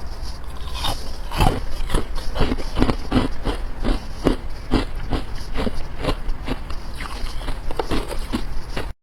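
A person crunching carbonated ice between their teeth, a steady run of sharp bites and chews at about three crunches a second.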